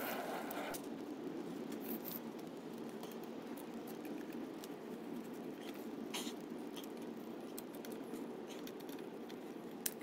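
Occasional light metallic clicks and clinks of a bicycle crank, chain ring and its small mounting bolts being handled and fitted, over a steady background hiss.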